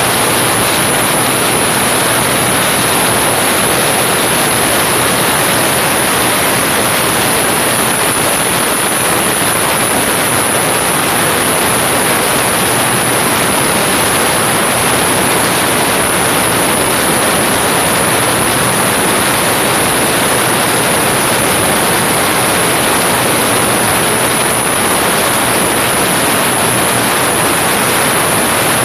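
Hino EP100 inline-six diesel engine in a racing boat, running steadily under a loud, even rushing noise.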